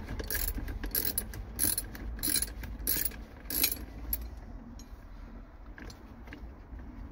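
Socket ratchet clicking in repeated short bursts, one on each back-swing of the handle, as it undoes a 5/8 in seat belt mounting bolt. The clicking stops about four seconds in.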